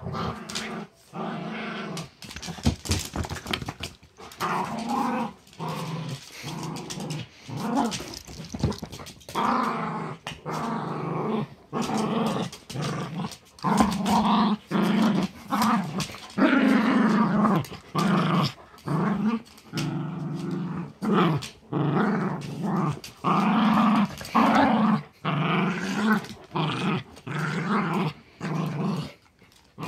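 Dogs growling in play while tugging on a plush toy: a long run of growls, each about a second long, broken by short gaps. The growls are play growls during a game of tug of war, not aggression.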